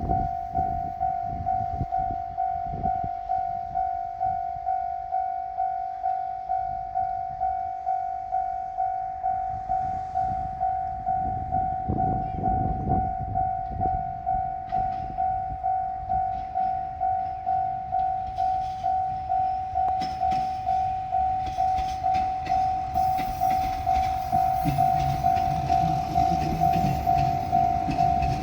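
Japanese level-crossing warning bell ringing, an electronic ding repeating about twice a second. From about two-thirds of the way in, the low rumble and rail clatter of an approaching diesel train grow beneath it.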